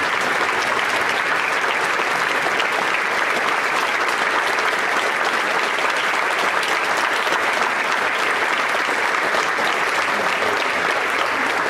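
Audience applauding: dense, steady clapping with no letup.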